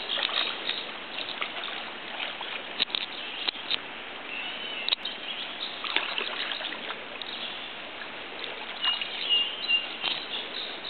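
Trickling water with birds chirping a few times, over scattered short sharp clicks and taps.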